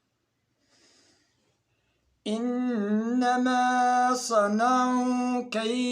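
Near silence with a faint breath, then, a little over two seconds in, a man's voice begins Quran recitation in the melodic tajwid style. It runs in long held notes with ornamented turns in pitch.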